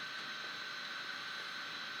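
Steady radio static hiss with a faint steady high tone underneath, in the pause between the data bursts of an Emergency Alert System header.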